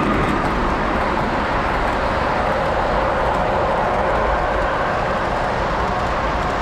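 O-gauge model train, a diesel locomotive pulling boxcars, rolling past on three-rail track with a steady rumble of wheels on rail.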